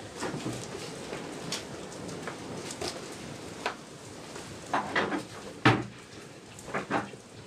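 Scattered knocks and clinks of kitchen things being handled, the loudest knock a little past the middle.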